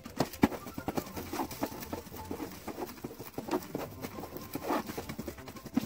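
Small hands patting and pressing plastic cling wrap over wet paint on a canvas: quick, irregular pats with rustling of the plastic.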